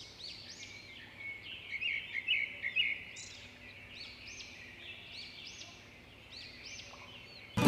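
Small birds chirping: quick arched chirps repeated over and over, loudest about two to three seconds in.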